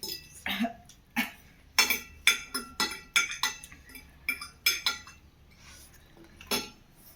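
Cutlery clinking against dishes while eating: a dozen or more irregular sharp clinks, each with a short ring. They are busiest in the first five seconds, with one last clink near the end.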